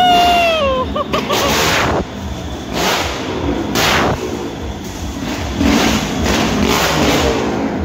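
Motorcycles circling the wall of a wall-of-death drum, engines revving in repeated loud swells as they pass, with a rising then falling whine in the first second.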